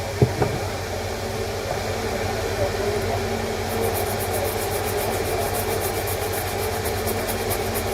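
Steady low mechanical hum with a single knock just after the start; from about halfway, a fast, faint, high-pitched ticking joins it.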